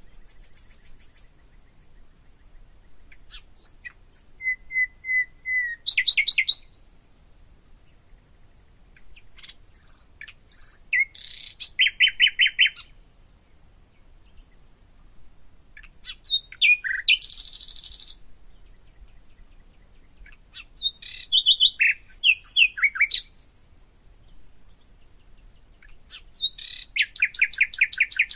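A songbird singing in short, high-pitched phrases of rapid trills and whistled notes, about six phrases with pauses of a few seconds between them.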